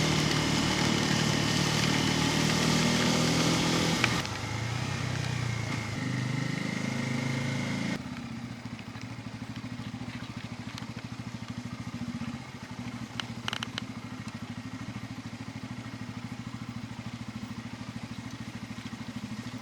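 Bajaj Pulsar N250's 249 cc single-cylinder engine pulling hard for about four seconds with a hiss of wind and tyres. Its pitch then falls and rises through gear changes, and about eight seconds in it settles to a quieter, steady low-rpm run with an even firing pulse.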